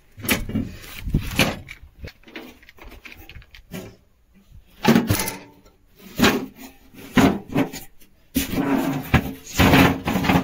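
Irregular knocks, clunks and rubbing of hands and tools working at a truck's batteries and their terminals, with a busier, continuous scraping stretch near the end.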